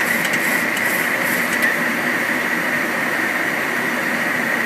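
Steady flight-deck noise of a Boeing 737-800 climbing after takeoff: an even rush of airflow and engine noise with a steady high tone running through it.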